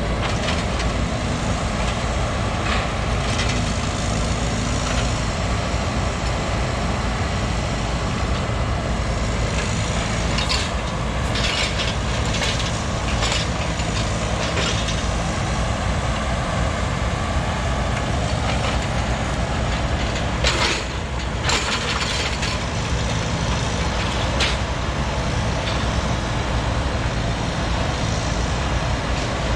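Heavy machinery's diesel engine running steadily, with a few short knocks scattered through and a louder pair about twenty seconds in.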